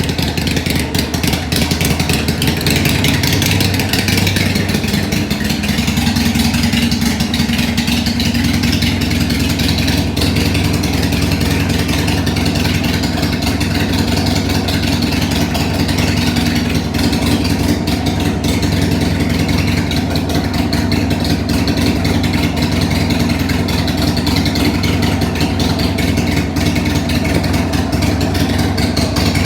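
2020 Harley-Davidson Iron 883's air-cooled V-twin idling steadily through aftermarket Harley-Davidson Radium exhaust pipes.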